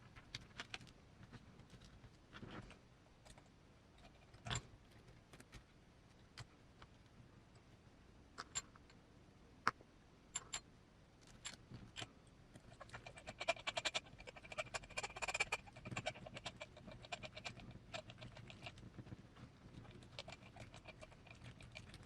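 Small tools and screws clicking and tapping against the parts of a miniature RC crawler's axles: scattered single clicks, then a dense run of rapid ticking from a little past halfway until near the end.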